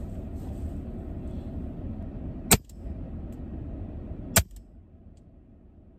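Two shots from an EDgun Leshiy 2 PCP air rifle, about two seconds apart, each a sharp crack followed by a faint click. A low steady rumble underneath drops away soon after the second shot.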